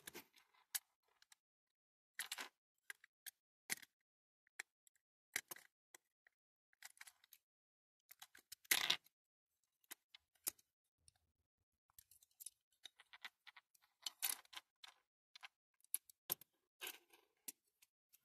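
Scattered small clicks and taps of a die-cast metal toy crane and its lattice boom being handled and fitted together by hand, with one louder, longer rub about nine seconds in.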